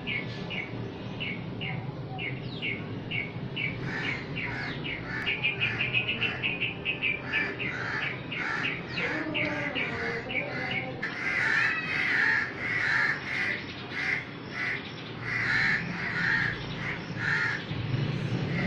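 Bulbuls calling over and over: short, sharp calls several times a second, coming faster about four seconds in and growing louder and harsher from about eleven seconds in.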